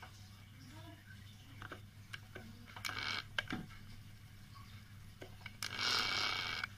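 Faint clicks and scraping as an electric drill with its bit against a plywood board is handled, the drill motor not running, over a steady low hum. A longer rush of scraping noise comes about a second before the end.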